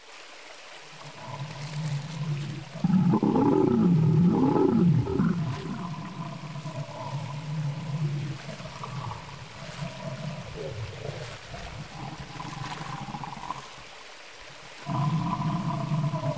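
Sound-designed dinosaur calls for an animated stegosaurus. A loud bellowing roar about three seconds in sweeps up and down in pitch, steadier lower calls follow, and another loud steady call starts near the end.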